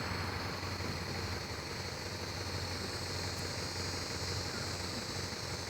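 Steady outdoor background drone: a low hum under an even hiss, with a faint thin high whine held throughout.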